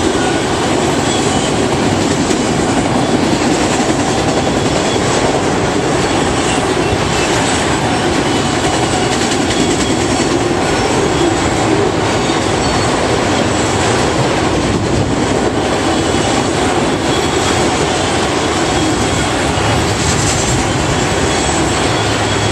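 Freight train of enclosed autorack cars rolling past close by: a loud, steady rumble of steel wheels on the rails.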